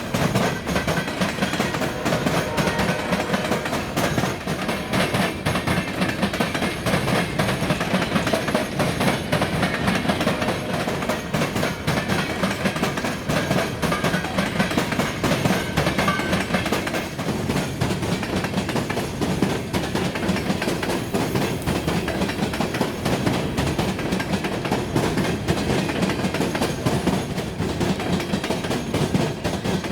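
Freight train rolling past, its car wheels clattering steadily over the rail joints and the diamond crossing in a continuous run of clicks.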